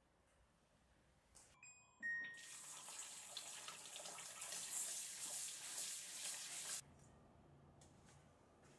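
Water running from a kitchen tap into the sink for about five seconds, starting and stopping abruptly as the tap is turned on and off.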